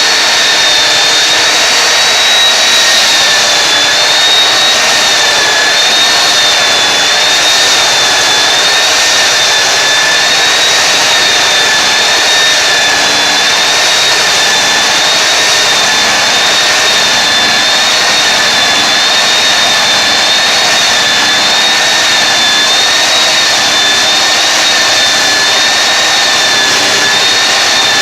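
Belt sander running steadily, its motor whining with a slight waver in pitch while it grinds away old vinyl floor tile.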